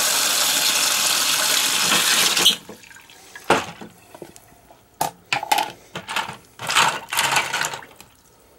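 Tap water running into a pot of cleaned brass cartridge cases, shut off about two and a half seconds in. Then scattered clinks of the brass cases and small splashes as a hand moves them around in the water.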